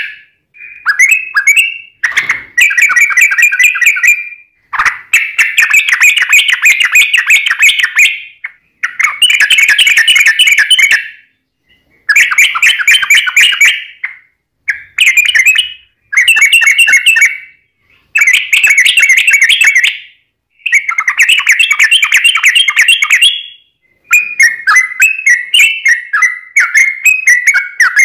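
Yellow-vented bulbul singing hard: about nine long, fast, rolling phrases of one to three seconds each, broken by short pauses, the long rapid 'ropel' song. In the last few seconds the song turns to quicker, broken chirps.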